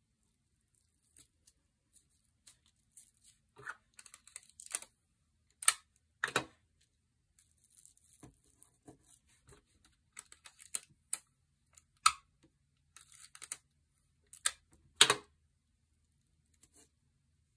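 Hands taping a pipe cleaner star down onto cardstock: scattered short rustles, crinkles and taps of sticky tape and paper, the sharpest about six seconds in and again about fifteen seconds in.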